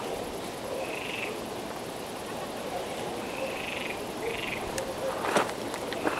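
Frogs calling: a few short calls, spaced a second or more apart, over a steady background hiss. A sharp click about five seconds in.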